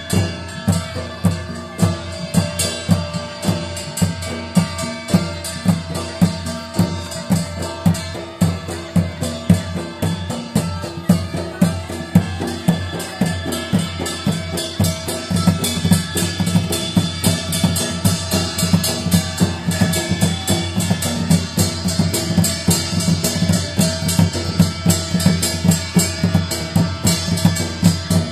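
Live drums played for a Danda Nacha dance, beating a steady rhythm of about two strong strokes a second that grows busier in the second half, over a steady held tone.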